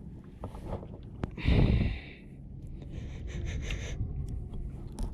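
Heavy breathing of an angler fighting a fish, heard from a chest-mounted camera: a loud blowing breath about a second and a half in and a softer, hissing one near four seconds. Light clicking and scratching come from the undamped camera mount throughout.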